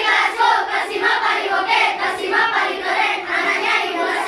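Children's choir singing together in unison, many young voices at once.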